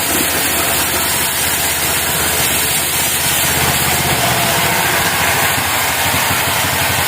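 Engine of a portable bandsaw mill running steadily, with a fast even low pulse under dense mechanical noise.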